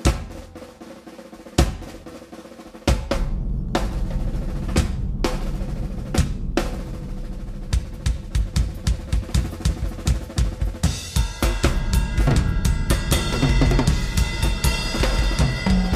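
Drum solo on a large acoustic rock drum kit: a few spaced hits, then from about three seconds in a fast, dense run of bass drum, toms and snare, with cymbals joining from about eleven seconds in.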